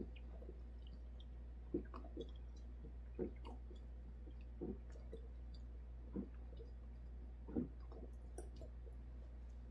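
Gulping swallows of a man drinking straight from a glass bottle in one long chug, a faint gulp about every second and a half.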